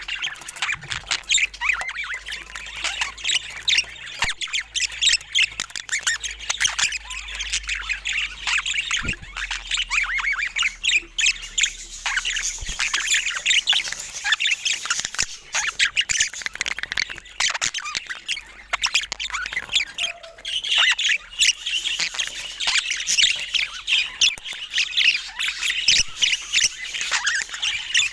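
Budgerigars chattering: many short, high calls overlapping without a pause.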